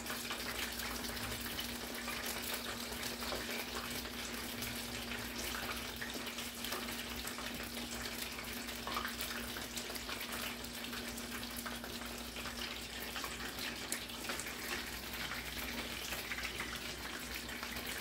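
Oil frying in a pan: a steady crackling sizzle, with a low steady hum under it.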